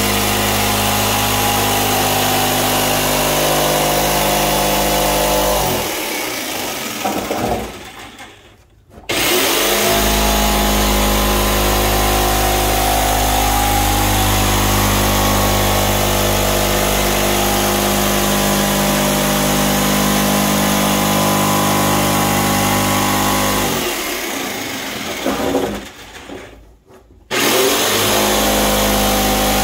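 Corded jigsaw cutting through a blue plastic 55-gallon barrel, the motor running at a steady pitch with the blade chattering through the plastic. Twice it winds down and stops for a second or so, then starts up again, pauses between cuts along the barrel.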